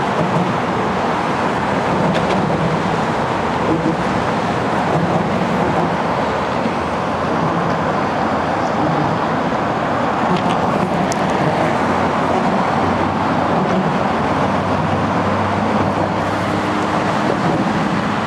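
Steady road traffic noise, with one vehicle's engine hum standing out in the last several seconds.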